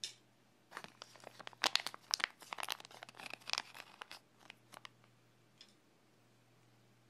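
Clear plastic packet of suguki turnip pickle crinkling and crackling in quick bursts as hands handle it and pull it open, starting with a single click and dying away about five seconds in.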